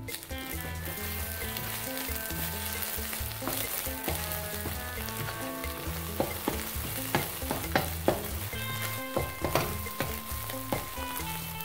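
Food sizzling in hot oil in a pan while it is stirred, with a utensil knocking against the pan several times in the middle stretch.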